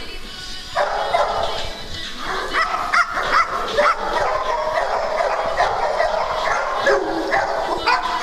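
Several dogs whining and yipping excitedly at close range: many short high yips in quick succession, with longer whines between them.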